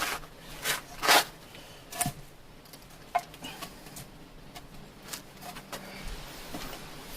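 A few short knocks and scrapes in the first two seconds, the loudest just after a second in, then a few fainter clicks over low background noise.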